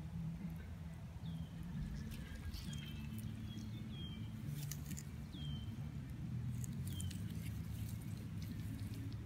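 Outdoor ambience: a steady low rumble under short high chirps that repeat about once a second, with scattered light clicks.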